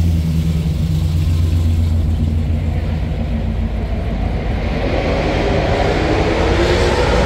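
Sports car engines at a drag strip: a deep, steady engine rumble, then from about halfway a second engine note climbs in pitch and builds as a car revs and accelerates.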